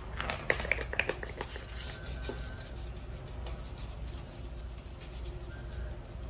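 A quick run of sharp clicks and knocks, then soft rubbing, like hands handling and wiping hard parts.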